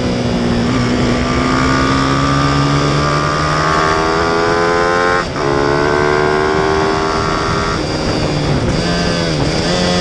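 Racing motorcycle engine heard from an onboard camera, revs climbing as it accelerates. About five seconds in there is a short break in the sound as it shifts up, and the revs climb again. Near eight seconds the revs drop, with a couple of quick dips and rises as it slows for the next corner.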